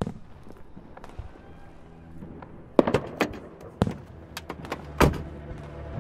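Car door sound effects over a low steady hum: a click at the start, then a run of sharp knocks and clunks from about three seconds in, the loudest about a second before the end.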